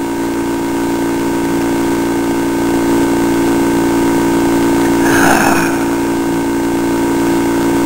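Steady machine hum holding several fixed pitches, with one short burst of noise about five seconds in.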